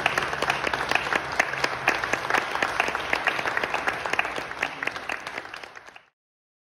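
Audience applauding with dense, continuous clapping that thins and fades out, then cuts off about six seconds in.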